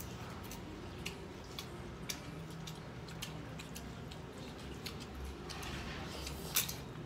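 Eating noises of a meal taken by hand: scattered crunches and clicks of chewing and of fingers working rice in metal plates, with a crisp papad cracker, and one sharper click near the end.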